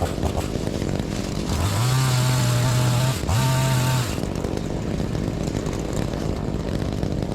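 Chainsaw revved to full throttle about a second and a half in, easing off for a moment just after three seconds, then revving again and dropping back near four seconds, over a steady low engine rumble.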